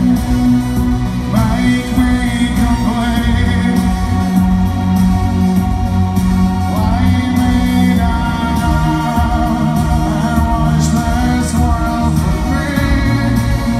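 Live futurepop band playing loudly through a venue PA: a man singing over synthesizers and a steady beat.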